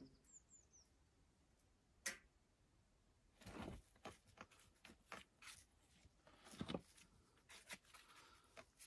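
Faint, scattered scrapes and knocks of stone on stone and mortar as stones are set along the top of a stone wall, with a sharp click about two seconds in and the loudest scrapes past the middle. A few faint bird chirps near the start.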